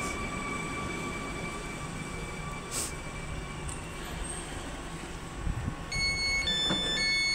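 Stadler FLIRT electric multiple unit running on the rails, heard from inside, with a steady rumble and a thin high whine that fades out a few seconds in. About six seconds in, a run of electronic beeping tones at changing pitches starts and the sound gets louder.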